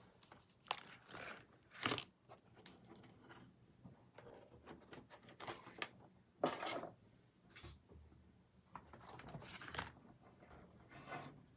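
Scattered rustling and shuffling sounds, a handful of short bursts a second or two apart.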